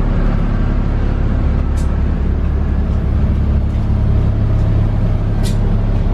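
Converted school bus's engine idling, a steady loud low rumble. A couple of light clicks sound over it, near two seconds in and again near the end.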